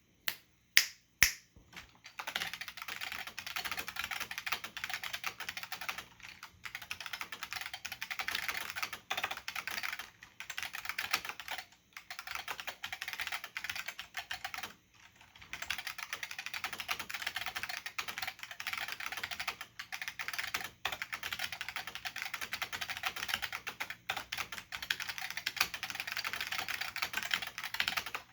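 Typing on an IBM P70 keyboard's Alps plate-spring switches (SKCP family) under thin dye-sublimated keycaps. A few separate keystrokes come first, then fast, continuous typing with a few brief pauses.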